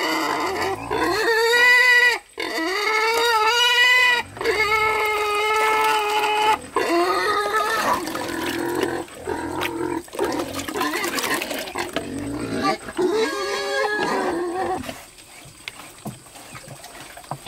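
Pigs squealing over and over, a string of loud, high squeals a second or two long each, as hungry pigs do while waiting for feed. The squealing stops about fifteen seconds in, when the feed pan goes down.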